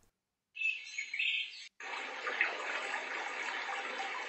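Built-in nature sounds from the i-box Daybreak alarm clock's speaker, stepped through by button presses. About half a second in, a short clip of birdsong chirps plays and is cut off; from about two seconds in, a steady rushing brook plays.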